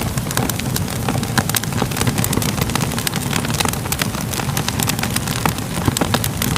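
Crackling fire: a steady low rush of burning with many quick, irregular crackles and pops.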